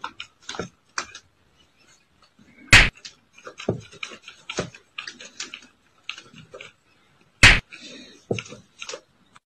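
A cat rummaging among books and papers: scattered soft rustles and light knocks, with two sharp, louder knocks, one about three seconds in and one about seven and a half seconds in.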